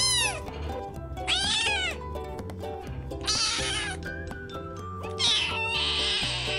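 Ginger kitten meowing four times over background music: two clear, arching meows, then two longer, hoarser cries.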